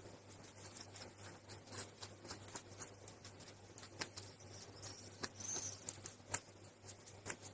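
Rabbit chewing and biting watermelon: faint, irregular wet crunching clicks, with a few sharper bites in the second half, over a low steady hum.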